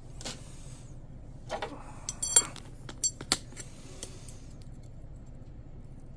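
Light metallic clinks and knocks of small metal parts and tools being handled, bunched between about one and a half and three and a half seconds in, one with a short bright ring. After that only a few faint ticks.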